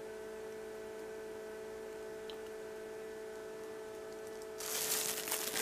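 Steady electrical hum with several fixed tones. About four and a half seconds in, a loud rustling, crinkling handling noise starts and continues.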